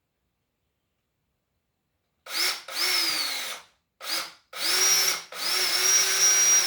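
Drill driver running in a series of bursts as it drives screws into a wooden 2x4 frame, starting about two seconds in. There are two short spurts, one whose pitch drops as the screw seats, then longer steady runs near the end.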